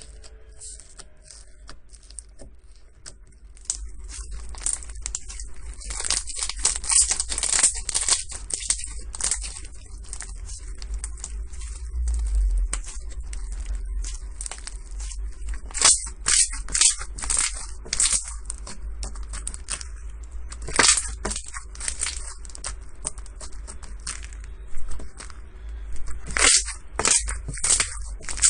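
Slime squeezed and pressed by hand, giving dense runs of crackling, crunchy pops that come in several louder flurries.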